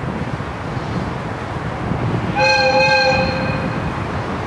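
A train horn sounds once for about a second and a half, past the middle, over steady wind noise on the microphone.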